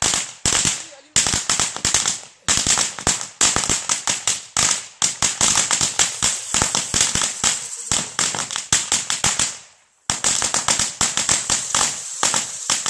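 A firecracker string (a 200-shot 'mitraillette') going off in a rapid run of sharp bangs, several a second, with a short break about ten seconds in before the bangs carry on.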